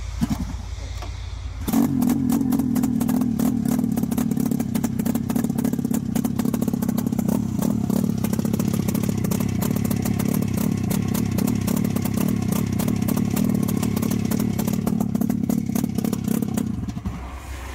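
Buran snowmobile two-stroke twin engine on a test stand starts about two seconds in, runs steadily with a fast, even firing beat, and is shut off near the end.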